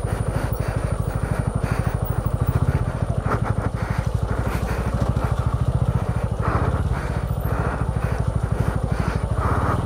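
Motorcycle engine running steadily at low revs, an even, fast throb of firing pulses that holds through without a break.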